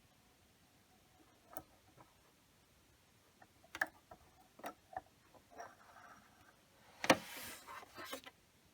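Scattered light clicks and taps from hands working the needle threader and thread at the needle of a Husqvarna Emerald 118 sewing machine. About seven seconds in comes a louder sharp click, followed by about a second of rustling.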